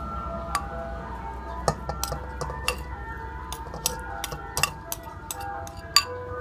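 A metal spoon clinking and scraping against a ceramic bowl and an aluminium pot as chopped meat is spooned into the pot: several sharp clinks, the loudest about six seconds in. Underneath runs background music, a simple melody of held notes.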